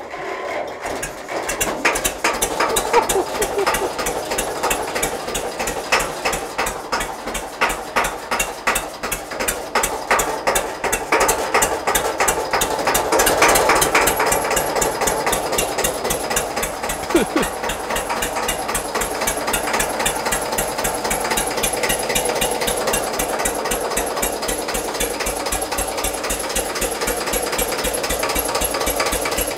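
Hanomag R16 tractor's diesel engine catching on its first start after long standing. It knocks unevenly at first, is loudest around the middle, then settles into a steady, even idle.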